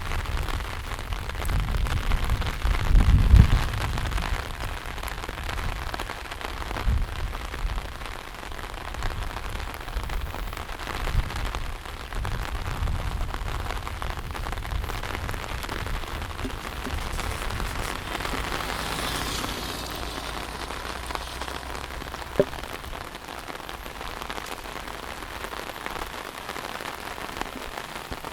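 Heavy monsoon rain falling steadily, with low rumbling thuds through the first half, loudest about three seconds in, and a single sharp click late on.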